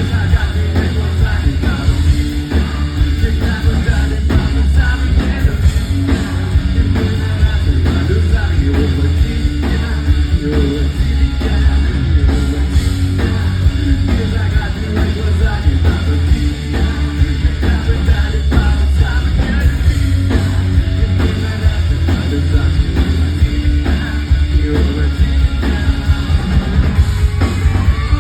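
Live rock band playing loudly, with heavy bass, drum kit and distorted guitars, as heard in a concert hall.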